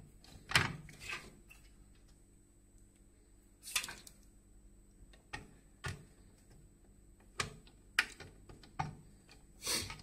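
Scattered, quiet clicks and taps of a screwdriver and screw against metal as a motherboard mounting screw is driven into the corner of a metal computer case, about ten separate short knocks at irregular intervals.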